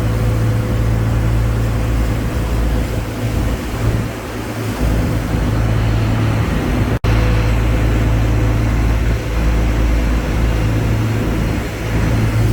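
Tour boat's engine running steadily at cruising speed, a loud low drone with a steady hum, over the rush of wind and water. The sound breaks off for an instant about seven seconds in.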